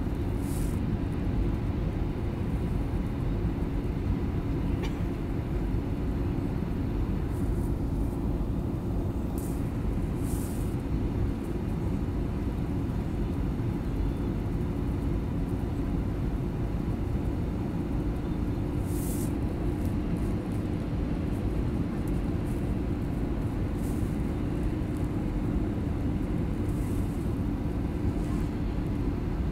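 Airbus A320-200 cabin noise on approach: the steady low rumble of the underwing jet engine and airflow heard from a window seat, with a faint steady hum.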